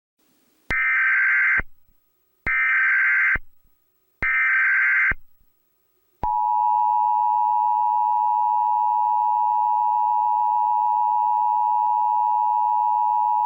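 Emergency Alert System SAME header: three identical bursts of digital data tones, each just under a second long and about a second apart. About six seconds in, the EAS attention signal begins: a steady two-tone 853/960 Hz beep.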